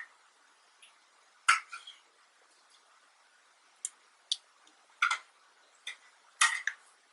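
Small, sharp clicks and taps of a precision screwdriver and tiny screw being worked into the bottom of an iPhone 6s Plus. There are about half a dozen at irregular intervals, the loudest about a second and a half in and near the end.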